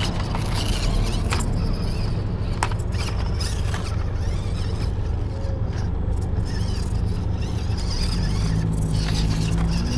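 Small RC rock-crawler truck (Jeep JLU model) crawling over rock: a faint electric motor whine with a few sharp clicks and knocks of tyres and chassis on the stone, over a steady low rumble.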